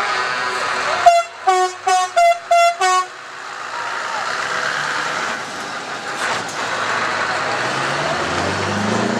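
Scania truck's air horn sounding a quick string of about five short blasts in under two seconds, then the truck's engine running as it pulls slowly away, with a low rising engine note near the end.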